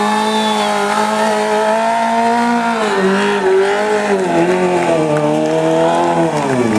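Stunt motorcycle engine held at high revs while the rear tyre spins in a smoky burnout. The pitch holds steady at first, then dips and climbs back several times, with a deep dip near the end.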